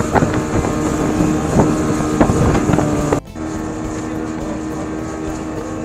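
Speedboat engine running steadily at speed, with wind buffeting the microphone. The sound cuts off abruptly about three seconds in and comes back a little quieter.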